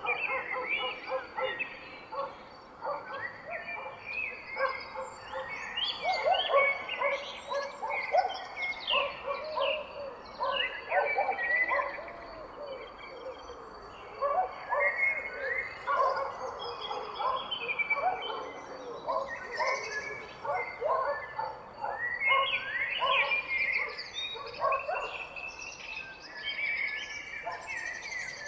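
A chorus of several songbirds chirping and singing at once, overlapping quick calls and warbling notes with no pause.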